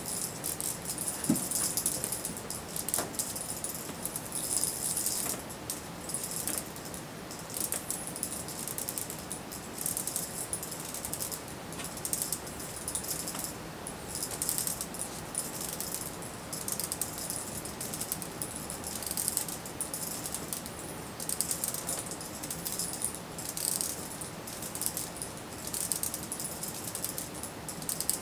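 A cat toy rattling as it is shaken and waved, in bursts of a second or two with short pauses between.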